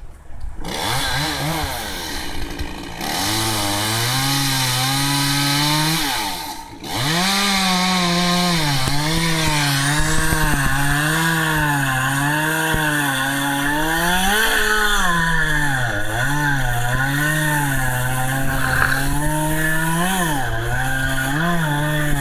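Chainsaw cutting into pine, the engine held at high revs and sagging and picking up again repeatedly as the chain loads in the wood, with a brief let-off a few seconds in.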